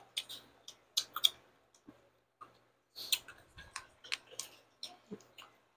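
Metal spoons clicking and scraping in plastic cups of shaved ice and halo-halo: a string of irregular light clicks, with a brief low voiced sound about five seconds in.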